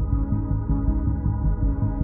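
Ambient background music: held tones over a quick, pulsing low beat.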